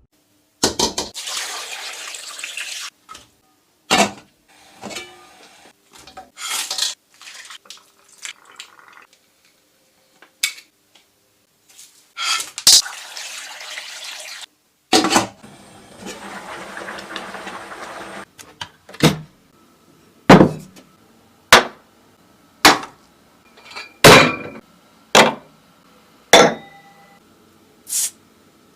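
Kitchen preparation sounds: water running from a tap in stretches of a few seconds, with dishes and utensils clinking. In the second half comes a run of sharp knocks about once a second.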